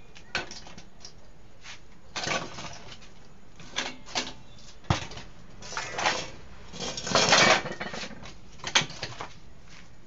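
Welded steel-tube rack being handled and set down: scattered metal clinks, knocks and short scrapes, busiest about seven seconds in.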